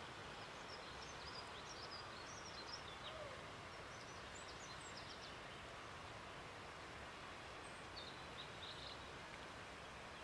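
Small birds calling in short, high chirps, in a cluster over the first few seconds and again near the end, over a steady rushing background noise.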